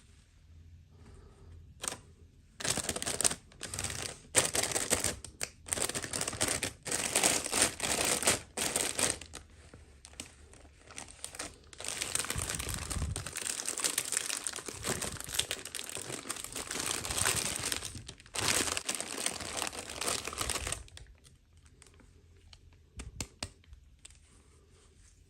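Toy packaging crinkling and tearing as it is unwrapped by hand. It comes in short bursts at first, then runs on more steadily before stopping, with a few light clicks near the end.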